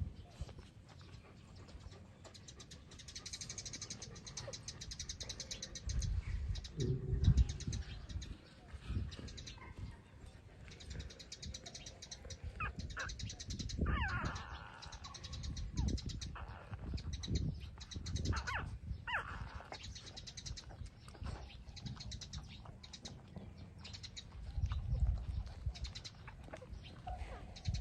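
Three-week-old puppies nursing, giving a few short high whines and squeaks, most of them around the middle, over low thumps and a pulsing high buzz in the background.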